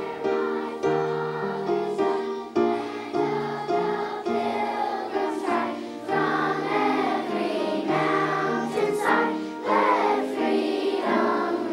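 A group of children singing a song together, accompanied by a piano. The piano chords are steady throughout, and the voices come through stronger about halfway.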